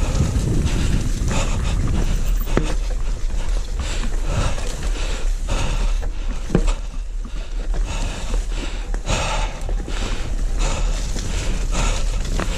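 Mountain bike descending a rocky trail: wind rushing over the microphone, with tyres rumbling and irregular knocks and rattles as the bike bounces over stones.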